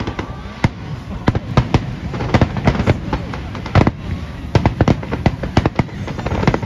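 Aerial firework shells bursting in quick, irregular succession: a dense run of sharp bangs, the loudest a little under four seconds in.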